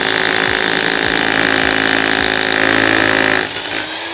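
INGCO RH10508 1050-watt rotary hammer drilling into a concrete floor in combined drill-and-hammer mode, a loud, steady hammering grind. About three and a half seconds in, the sound drops to a quieter, steadier running note.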